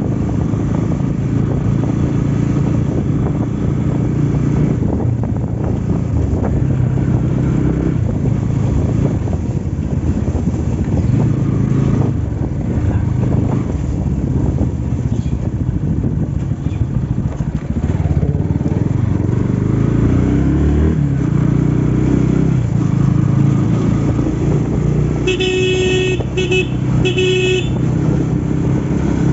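Motorcycle engine running steadily while riding. About 25 seconds in, a vehicle horn toots three times in quick succession.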